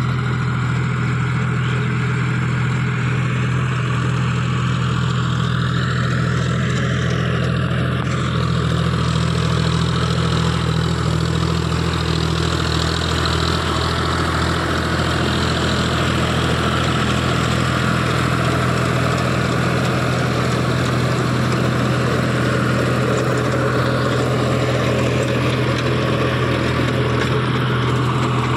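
John Deere 5045D tractor's three-cylinder diesel engine running steadily under load, driving a rear-mounted rotary tiller (rotavator) through the soil.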